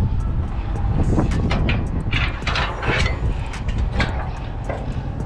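Steady low rumble of a car-hauler truck running while its trailer decks are being worked hydraulically, with scattered metallic clicks and knocks from the deck gear, busiest about two to three seconds in.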